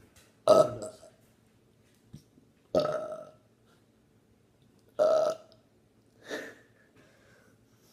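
A person burping four times, short burps a second or two apart; the first is the loudest and the last the weakest. The burps come from gulped carbonated soda.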